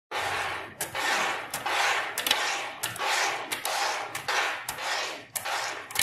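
Small magnetic balls clicking sharply as strands snap together, roughly once or twice a second. Between the clicks come short rolling, scraping sounds of the ball strands sliding over the tabletop.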